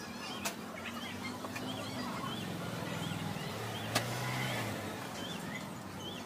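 A bird chirping over and over, one short wavy chirp about every half second, over a low hum of traffic. Two sharp clicks stand out, about half a second in and about four seconds in.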